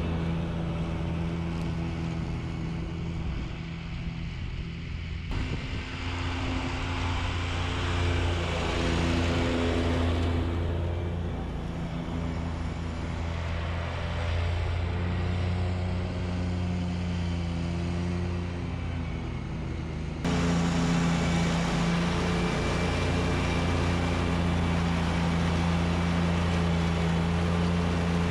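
Stand-on zero-turn lawn mower's engine running steadily while it cuts grass. About 20 seconds in, the sound steps up louder and closer.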